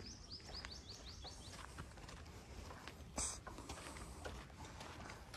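A bird singing a rapid series of high, falling notes, about five a second, which trails off about a second and a half in. Faint footsteps on a dry dirt trail run underneath, with a short hiss about three seconds in.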